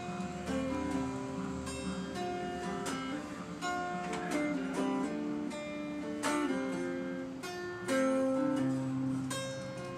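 Acoustic guitar music, a run of plucked and strummed notes that ring on.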